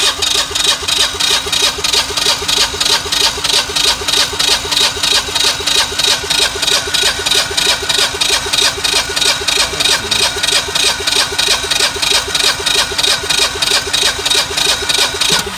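Generac generator engine cranking on its starter with the spark plugs out for a compression test, a loud, fast, even chugging beat that stops suddenly at the end. The gauge holds near 150 psi, good compression.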